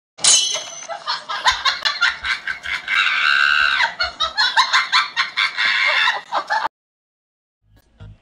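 Chicken clucking and cackling in a rapid, continuous run that cuts off suddenly about a second and a half before the end.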